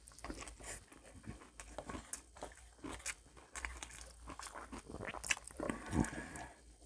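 A person biting and chewing crunchy fried food, giving irregular crisp crunches, the loudest a little after five and six seconds in.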